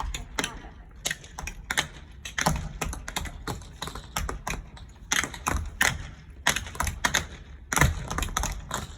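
Tap shoes striking a hard floor in quick clusters of sharp clicks, several taps a second with a few heavier thuds, practising clear, hard tap sounds.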